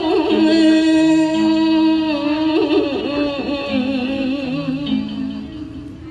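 A woman chanting a classical poem in the ca trù ngâm style: long held notes that waver and bend in pitch. Beneath the voice, single low notes plucked from a đàn đáy long-necked lute come in and out.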